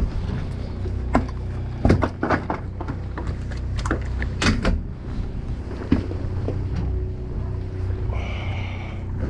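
Steady low hum of a boat's engine, with a cluster of sharp knocks and clatters in the first half and a short high whir near the end.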